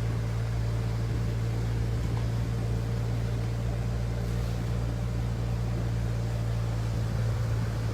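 Steady drone of a Force Gurkha's diesel engine heard from inside the cabin, running evenly at low speed with no change in pitch.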